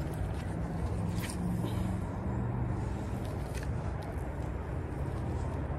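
Steady low outdoor background rumble, with a few faint clicks about one and three and a half seconds in.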